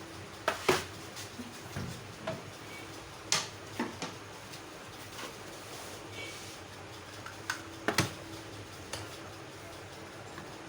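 Scattered sharp clicks and knocks of hard plastic as a microwave oven's control board is worked loose from its snap-in locks, coming in pairs about half a second in, after about three seconds and around eight seconds.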